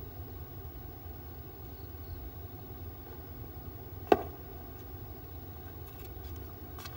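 Low, steady outdoor background rumble, with one sharp knock about four seconds in.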